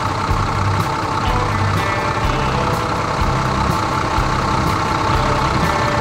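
Tractor engine running steadily with a low rumble as the tractor pulls a loaded trailer.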